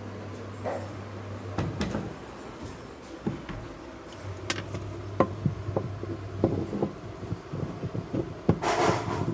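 Scattered clicks and knocks of parts and tools being handled during a repair on a semi-automatic washing machine. Under them is a low steady hum that stops for a couple of seconds and comes back, and a brief rushing scrape comes near the end.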